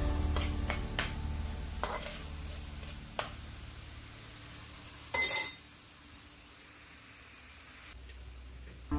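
Metal spatula stirring and scraping sliced mushrooms and onions in a frying pan over a faint sizzle, with a few sharp clicks in the first seconds and a short, louder ringing scrape about five seconds in.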